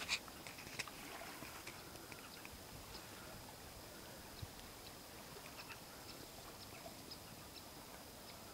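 Faint outdoor background hiss with a thin, steady high whine and a few scattered soft clicks; a sharper click comes right at the start.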